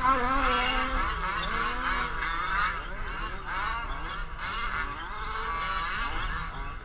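Several small two-stroke gas engines of 1/5-scale RC trucks running at once, their overlapping buzzing whines rising and falling in pitch as they rev up and back off.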